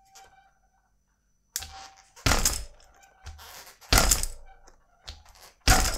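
Mountain bike chain, with no chain tensioner fitted, slapping and rattling against the rear frame in a series of loud clatters, about one a second, starting a second and a half in.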